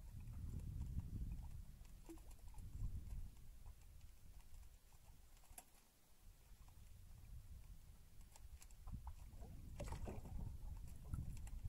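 Faint scattered clicks and light knocks from a squid-fishing handline being worked by hand at the side of a small boat, over an on-and-off low rumble. The clicks cluster in the second half, most of them between about 8 and 11 seconds in.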